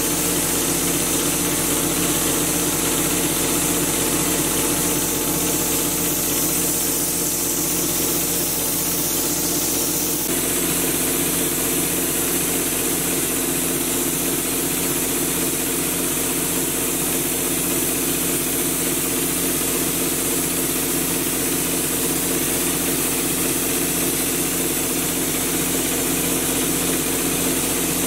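Drywall texture spraying rig: the machine feeding the spray gun hums steadily, with a strong hiss of air from the gun, while orange-peel texture is sprayed. The sound shifts slightly about ten seconds in.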